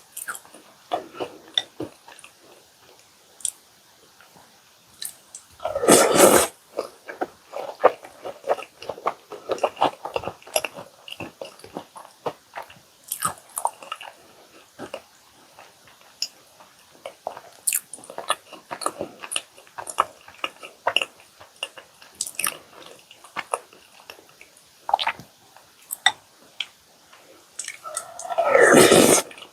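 Close-miked chewing and biting of chocolate chip cookies with milk: many small, irregular wet clicks and smacks, with two louder, longer sounds about six seconds in and near the end.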